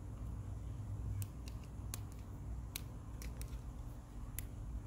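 About seven irregular sharp clicks of small plastic and metal parts being handled, the parts of a dismantled Pinion twist shifter, over a low steady rumble.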